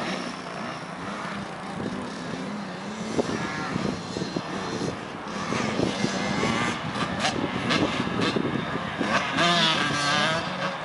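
Small 50cc two-stroke youth dirt bike engines, such as a KTM 50, revving on a motocross track, their buzzing pitch rising and falling as the riders accelerate and back off.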